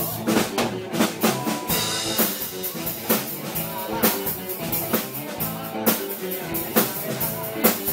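Live band playing: a drum kit keeps a steady beat of kick, snare and rimshots under electric guitar, bass guitar and keyboard.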